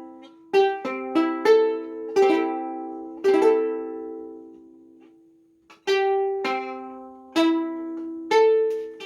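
Home-built balsa wood tenor ukulele strummed, a series of chords that ring out. Midway a chord is left to decay for about two seconds until it nearly dies away, then strumming resumes.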